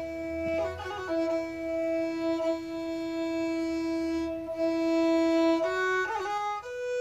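Background music: a slow instrumental melody of long held notes, with short ornamented turns about a second in and again near the end.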